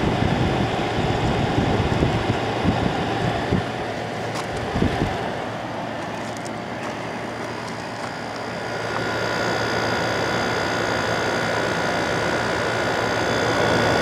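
General Electric 5500 BTU window air conditioner (AHM05LWW1) running: compressor and fan humming steadily. The compressor sounds healthy, and the unit is cooling normally. A few knocks in the first five seconds; from about nine seconds a steady whine comes up.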